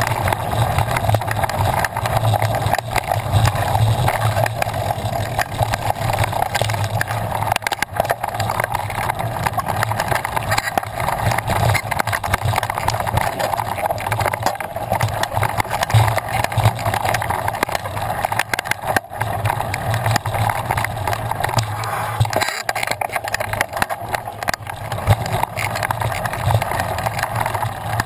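Mountain bike ridden over rough dirt singletrack, heard through the mounted action camera: a steady rushing of wind and tyre noise, with small rattles and knocks from the trail running through it the whole time.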